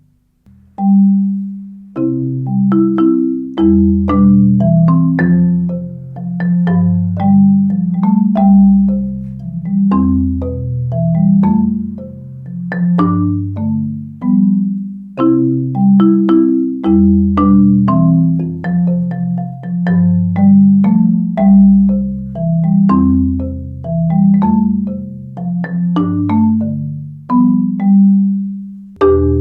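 Marimba played with Marimba One Wave Wrap mallets: a flowing passage of many struck notes, with deep low-register notes ringing under the higher ones. It starts about a second in.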